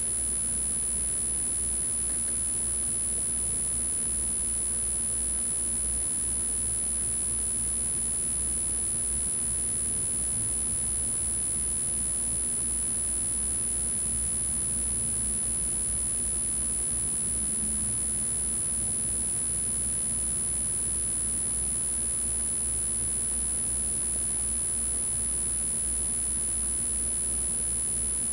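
Steady background noise with a low rumble and a constant high-pitched whine, with no distinct events.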